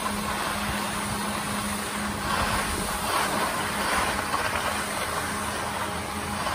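Snowmaking guns running: a steady rushing hiss of air and water spray with a low steady hum underneath, swelling a little louder a few times between about two and four seconds in.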